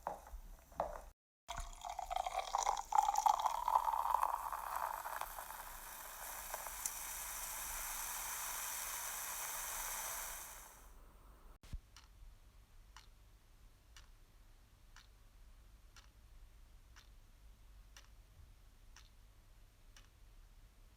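Water running and splashing for several seconds, easing into a steadier rush before it stops. Then faint, regular ticks, about one a second.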